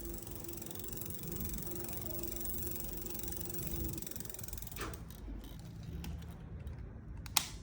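Electric bike running after power-up: a steady motor hum over a low rumble that stops about four seconds in, then a click and a sharper click near the end.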